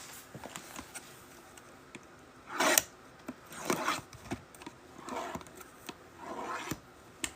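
Trading-card boxes and packs being handled and opened: a series of short rustling, scraping tears of cardboard and wrapper, the loudest about two and a half seconds in, with small clicks between.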